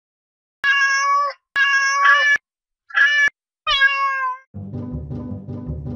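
Domestic cat meowing four times in quick succession, the last meow falling in pitch. Background music starts near the end.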